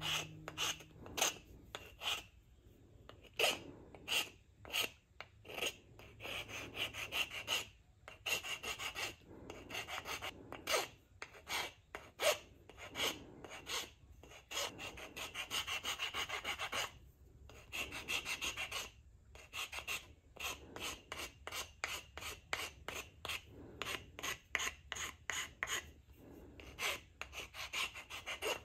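Hand file scraping across the end of a turned wooden chisel handle, stroke after stroke in quick uneven runs of about three or four strokes a second with short pauses between, trimming the handle to fine-tune its fit.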